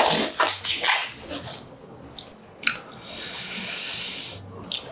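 Black nitrile gloves squeaking and snapping as they are stretched on over the hands. After that come a few light clicks and a short high hiss as a gloved hand reaches into the plate of food.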